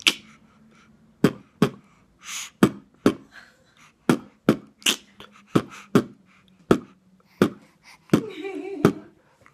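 A man beatboxing: a loose pattern of sharp mouth pops like kick drums, about one to two a second, with a short hiss like a hi-hat a couple of seconds in and a brief vocal sound near the end.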